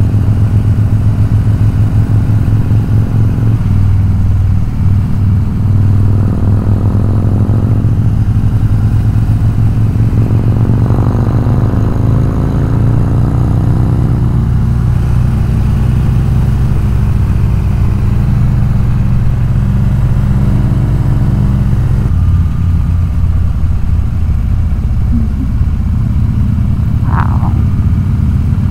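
Harley-Davidson V-twin motorcycle engine running at road speed, its pitch rising and falling with the throttle between about 6 and 14 seconds in, then steady again. A brief high chirp near the end.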